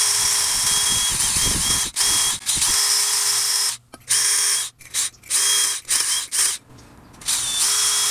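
Cordless DeWalt drill spinning a small wire wheel brush against a brake caliper bracket, scrubbing the pad-clip seats clean. The motor's whine and the bristles' scrubbing start and stop many times as the trigger is pulsed, with a longer pause about two-thirds of the way through.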